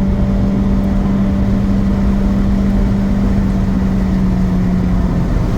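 Engine and road noise heard inside the cabin of a moving 2022 Honda Civic: a steady drone held at one pitch over a low rumble, easing slightly near the end. The car is being driven to bring out an intermittent misfire and loss of power.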